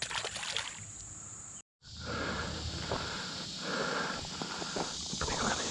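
Steady high chorus of insects, with a few brief clicks and rustles near the start. After a sudden cut about a second and a half in, the insect chorus carries on louder, with irregular rustling.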